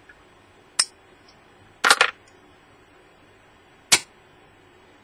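Small magnets clicking onto the steel rotor of a ventilation fan motor: a sharp metallic click about a second in, a quick double click near two seconds, and another just before four seconds.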